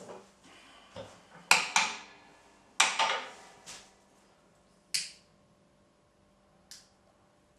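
A series of sharp clicks and clinks of hard objects being handled, about seven in all. The loudest come in two close pairs in the first half, followed by two lighter single clicks.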